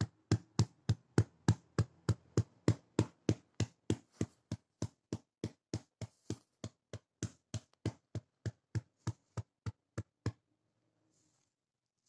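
A hand patting a dog's body in a steady rhythm, about three firm pats a second, stopping near the end: chest patting meant to ease the dog's cough.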